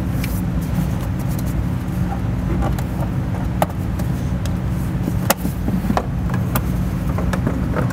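A few sharp plastic clicks as the Can-Am Maverick X3's airbox cover clips and cover are worked off by hand, over a steady low hum.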